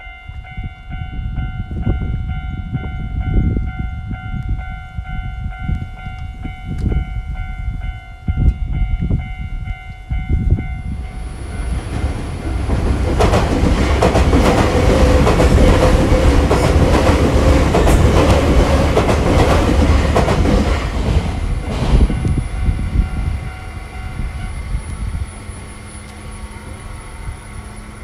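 A Japanese level crossing's electronic warning bell rings steadily over low thuds for about the first ten seconds. Then a Nankai Koya Line commuter train runs through the crossing, a loud rush of wheels clattering over the rail joints for about ten seconds that fades after about 22 seconds. Near the end a low steady hum remains.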